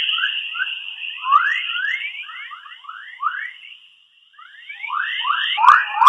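The 'sound of Earth' space recording: Earth's electromagnetic chorus waves converted to audio, heard as a steady high whine with many quick rising chirps, like birdsong. The chirps pause briefly about four seconds in, then come back thicker, with a couple of sharp clicks near the end.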